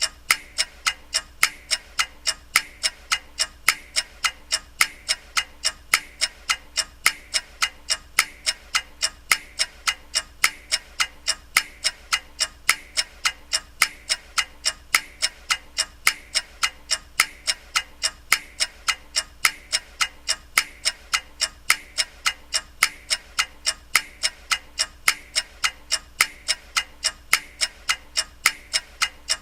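Ticking clock sound effect: sharp, evenly spaced ticks at about two a second, keeping a steady rhythm.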